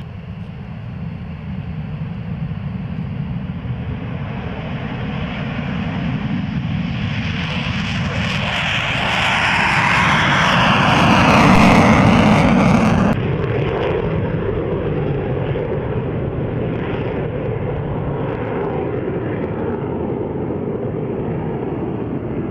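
F-15E Strike Eagle twin-turbofan jet taking off at night: engine noise builds steadily to a loud peak as it passes, drops suddenly a little past halfway, then holds at a steady, lower level as the jet climbs away.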